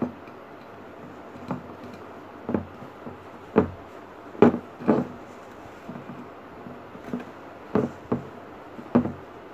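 Dull knocks, about seven spaced unevenly, as a vase is handled and shifted on a tabletop while the tissue-paper flower in it is adjusted.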